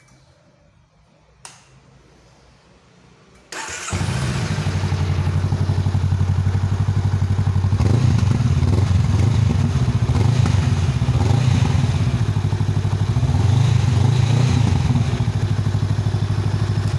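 Honda Rebel 500's parallel-twin engine cranked by the electric starter, catching almost at once, then idling steadily with two slight rises in engine speed. A single click comes about a second and a half before the start.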